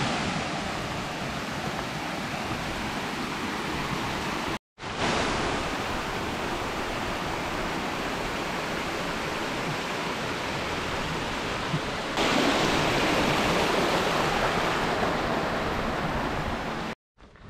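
Steady rushing water, an even hiss. It is broken twice by brief cuts to silence and grows louder about twelve seconds in.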